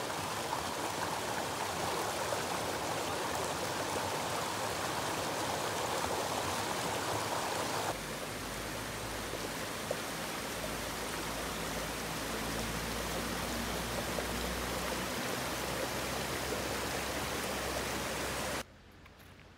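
Water splashing steadily over a small rocky cascade in a shallow creek. About eight seconds in, the sound cuts to a softer rush with a low rumble, and near the end it drops away abruptly.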